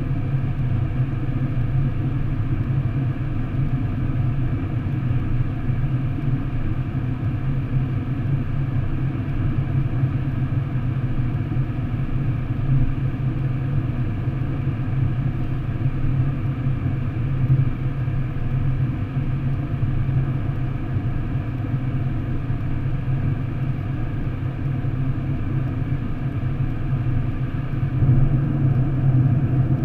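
Steady low drone of a car driving at motorway speed through a road tunnel, heard from inside the cabin: engine and tyre rumble, a little louder near the end.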